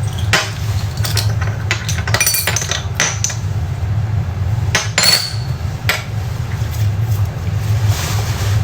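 Glass medicine ampoules being flicked and clinking: irregular sharp glassy clicks, with one short ringing clink about five seconds in, over a steady low hum.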